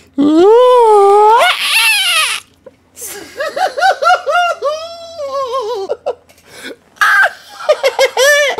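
A man laughing hard: it opens with a long, high, wavering cry, then breaks into strings of short bursts of laughter, about three a second, with another loud burst near the end.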